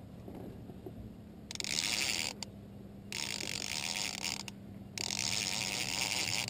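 Fishing reel being cranked in spurts, its gears whirring, as a hooked lake trout is reeled up through the ice hole. The cranking starts about a second and a half in and comes in several spells with short pauses between.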